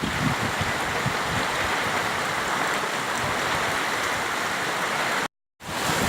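Summer storm: a steady rush of heavy rain and strong wind, with gusts rumbling on the microphone. The sound breaks off for a moment about five seconds in, then resumes.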